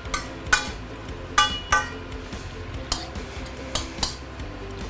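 Metal ladle stirring and tossing sliced cabbage and carrot in a stainless steel wok, clanking against the pan about seven times at irregular intervals, some strikes ringing briefly.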